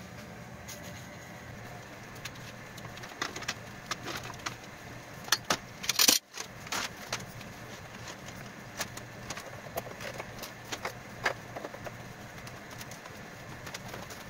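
Scattered metal clicks, clanks and rattles as a folding steel-and-aluminium tube stand is handled and swung open, loudest just before six seconds in, over a steady low workshop hum.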